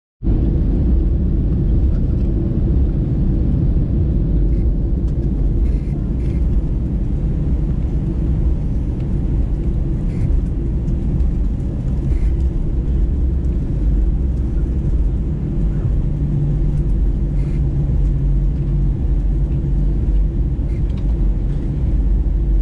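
Cabin noise inside an Airbus A320 on the ground: a steady low rumble from the engines and air system, with a few faint clicks and rattles from cabin fittings and a faint low hum rising briefly in the middle.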